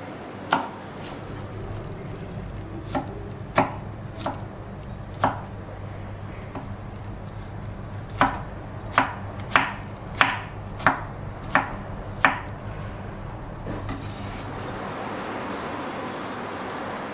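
Chef's knife chopping garlic cloves on a wooden cutting board: a few scattered sharp chops, then about seven in quick succession, roughly one every two-thirds of a second. Near the end, a steady scraping as the knife pares the skin off a potato.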